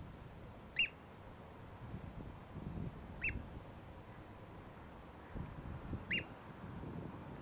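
Eurasian oystercatcher giving three short, sharp piping calls, a few seconds apart, over a low, uneven background rumble.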